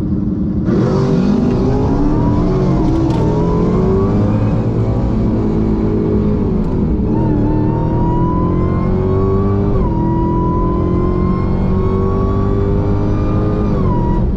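The supercharged 6.2-litre V8 of a Dodge Hellcat Redeye at full throttle on a drag pass. The engine note climbs steadily and drops back sharply at each upshift, several times, each gear pulling longer than the one before.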